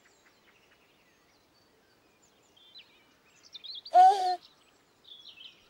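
Faint scattered bird chirps, with a baby's short coo about four seconds in, the loudest sound.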